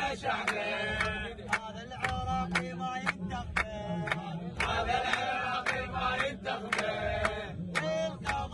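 A group of young men chanting a song together, keeping time with steady rhythmic hand clapping.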